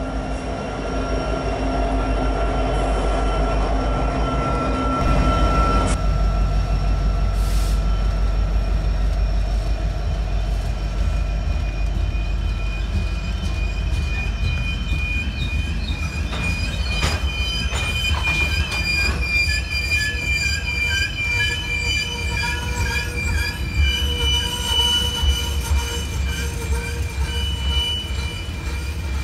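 Freight train cars rolling past with a low rumble and steady high-pitched wheel squeal. Several squealing tones waver and pile up in the second half, with a few sharp clanks about halfway through.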